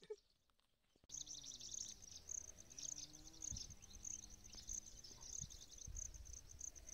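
Insects chirping in a steady run of high, pulsing chirps with bursts of fast trills, coming in about a second in. A few faint low thumps sit underneath.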